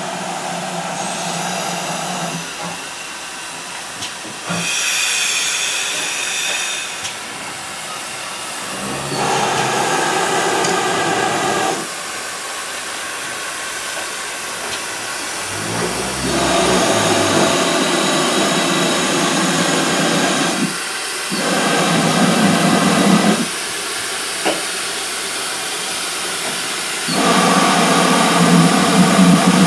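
GWR Modified Hall 4-6-0 steam locomotive standing with steam up, hissing steadily. The hiss changes abruptly in strength and pitch several times.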